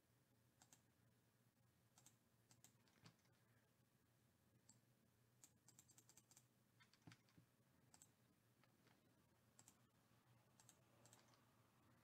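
Near silence: faint room hum with scattered soft clicks, coming thickest about six to seven seconds in.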